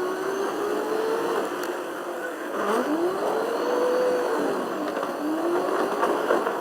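Car engine revving up again and again, each rise in pitch lasting one to two seconds before it drops, like a car accelerating through its gears.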